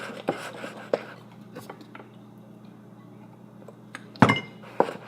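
Slime mixture being stirred in a bowl: scattered light clicks and scrapes of the stirring utensil against the bowl, with a sharper knock about four seconds in.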